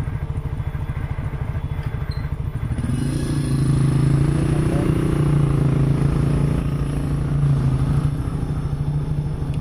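Yamaha Mio automatic scooter's small single-cylinder engine running under way. It pulls harder and louder from about three seconds in, then eases back near the end.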